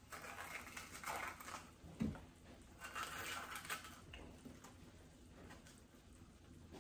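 A scoop loop's sharp-edged loop scraping and twisting inside a green bell pepper, cutting out the core and seeds in two faint spells of scraping. A soft thump about two seconds in.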